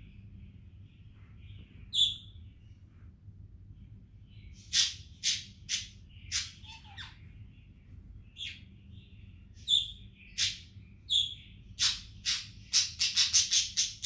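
Pet budgerigar chirping and chattering: a faint soft warble, sharp high chirps about two seconds in and a cluster a few seconds later, then a quickening run of chirps near the end, about four a second.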